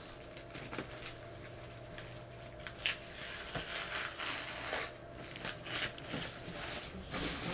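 Box packaging being handled: rustling and crackling in scattered bursts starting about two and a half seconds in, over a faint steady hum.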